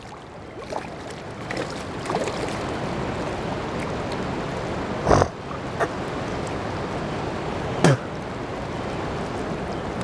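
A hooked bigmouth buffalo thrashing at the surface on a fishing line, making several sharp splashes, the two loudest about five and eight seconds in. Underneath runs the steady rush of swift spillway water.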